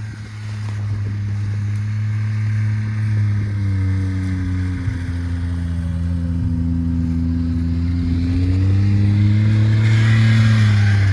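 Snowmobile engine running at a fairly steady speed, its pitch sagging slightly and then rising again near the end, growing gradually louder.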